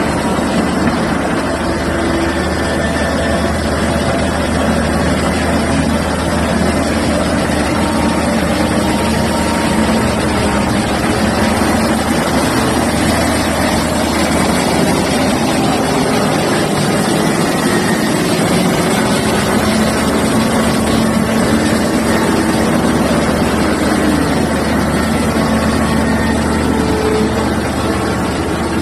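Liebherr R9800 mining excavator's diesel power plant running steadily under work: a loud, constant low drone with thin tones drifting in pitch above it.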